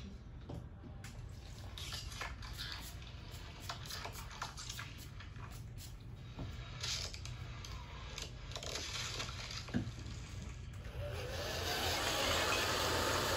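Several short hisses of a spray bottle misting water onto hair, then a handheld hair dryer switches on about eleven seconds in and runs steadily.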